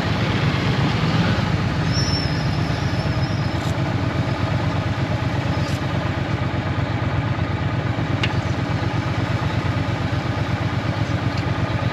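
Triumph T120 Bonneville's 1200 cc parallel-twin engine running steadily at an even pace, with no revving.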